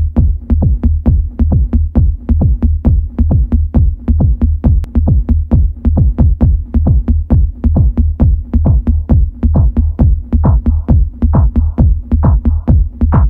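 Electronic dance music with a fast, steady drum-machine kick beat.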